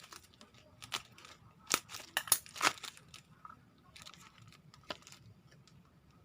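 Packaging being handled and opened by hand: irregular sharp crinkles and crackles, loudest in a cluster about two to three seconds in.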